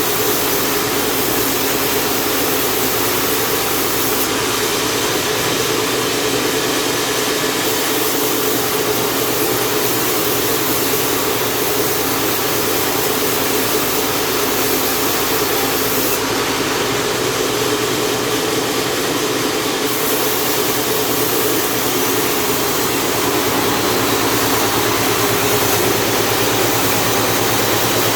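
Chainsaw engine running steadily under load, ripping lengthwise through a large jengkol log.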